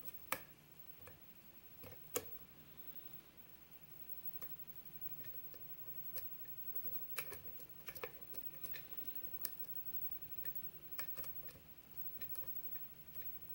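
Scattered small metallic clicks and ticks of a lock pick and tension wrench working the spool pins of a Schlage pin-tumbler lock. They come irregularly, a second or more apart early on, with a quick cluster a little past the middle, under a faint steady hum.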